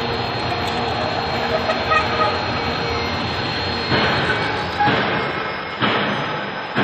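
Steel fence post roll-forming line running, the steel strip passing through the forming rollers with a steady machine noise. From about four seconds in, a sharp knock comes roughly once a second.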